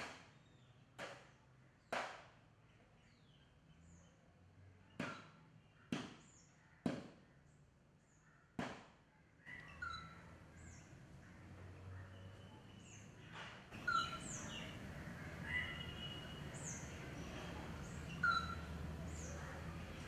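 Birds chirping with short, scattered calls, while seven sharp clicks sound in the first half. In the second half a steadier background noise rises and the chirps come more often.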